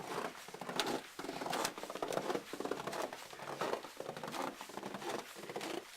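Footsteps crunching through deep snow, a steady run of about two steps a second.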